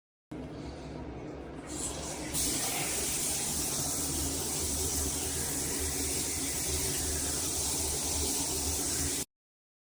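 Water spraying and hissing from a rain shower head. The flow builds up in two steps over the first couple of seconds, then runs steady until it cuts off abruptly.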